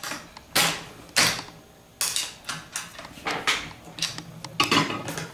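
About a dozen irregular metallic clicks and clinks, some with a short ring, from a feeler gauge and hand tools being handled against a shim-type cylinder head and camshaft during a valve clearance check.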